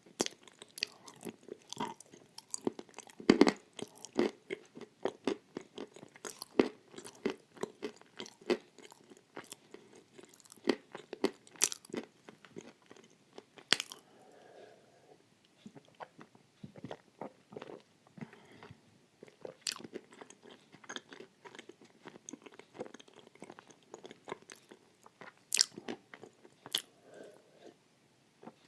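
Close-up chewing and crunching of pieces of edible clay with white chalk paste: a quick run of sharp crunches and crackles, dense in the first half and thinning out to scattered crunches later on.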